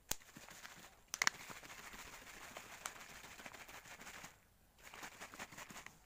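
Plastic bottle of milky liquid being shaken hard, the liquid sloshing in a dense rattling hiss with a few sharp knocks of the bottle near the start. The shaking pauses briefly past the middle, then resumes more unevenly.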